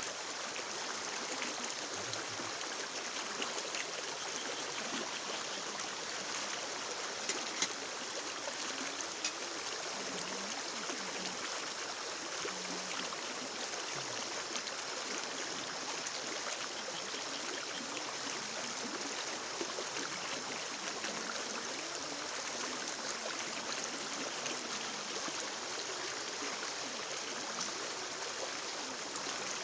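Steady, even rush of flowing water, unbroken throughout, with a few faint ticks about seven seconds in.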